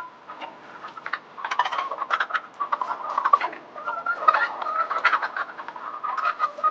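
A flock of layer hens clucking and calling, with many short, sharp clicks and taps among the calls.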